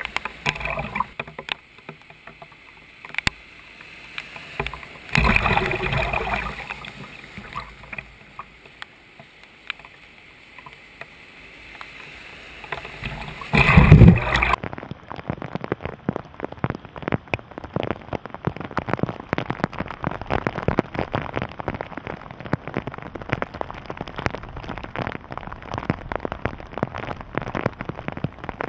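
Vehicles driving through deep floodwater on a road, with tyres throwing up a rushing splash: one pass swells about five seconds in, and a louder one near the middle sends spray against the microphone. For the second half, heavy rain patters densely on the flooded pavement.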